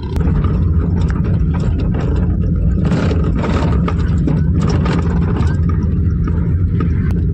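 Car engine and road noise heard from inside the cabin while driving slowly, a steady low drone.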